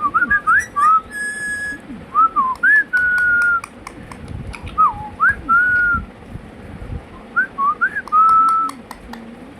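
Indian ringneck parrot whistling four similar phrases, each a few quick rising chirps ending in a steady held note.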